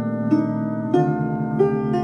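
Lyre music: single plucked notes, about one every two-thirds of a second, each ringing on over held lower strings whose pitch shifts about halfway through.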